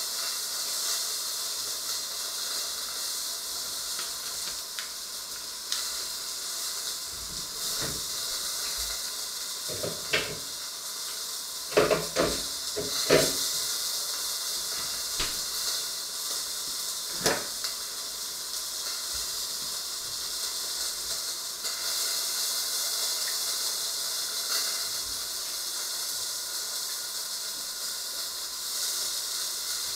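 A steady high hiss, with a few short knocks and clicks in the middle.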